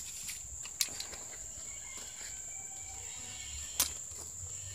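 Steady high-pitched insect chirring, like a cricket, with two sharp clicks about three seconds apart.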